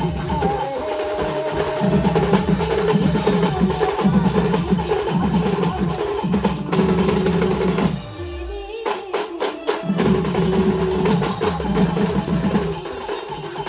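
Sambalpuri street band music with drums and percussion driving a steady beat under a melody line. About eight seconds in, the music breaks with a falling low swoop and a few sharp hits, then the full beat comes back.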